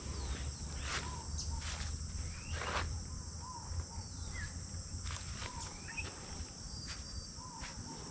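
Rural outdoor ambience: a steady high-pitched insect trilling with short bird chirps scattered through it, and a few brief ticks or rustles.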